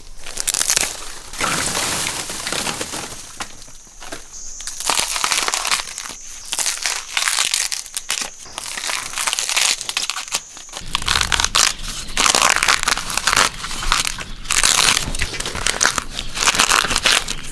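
Young thorny bamboo shoots being snapped and peeled by hand and knife: dense, crisp cracking, crunching and tearing as the tough sheaths are split and stripped away, in quick irregular runs. A faint steady high tone sits under the middle part.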